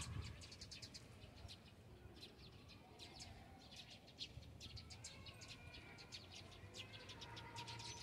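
Small birds twittering faintly: short, high chirps in quick runs.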